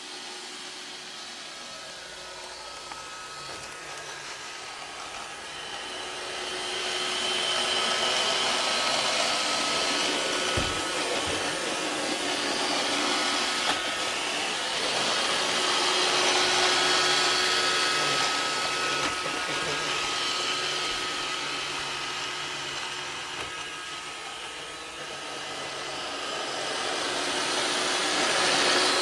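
Roomba 560 robot vacuum running as it cleans the floor, a steady whir with a faint constant hum, growing louder about six seconds in, easing a little later and rising again near the end. A single soft knock about ten seconds in.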